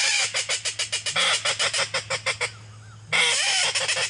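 A hand-blown duck call worked in rapid, evenly spaced runs of short notes, about eight to ten a second, calling to a flock of ducks overhead. One run lasts about two and a half seconds; after a short pause a second run starts near the end.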